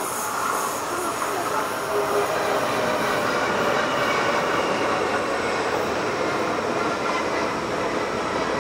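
Stockholm commuter train pulling into the platform, a steady rumble of wheels on rails with faint squealing from the wheels as it slows.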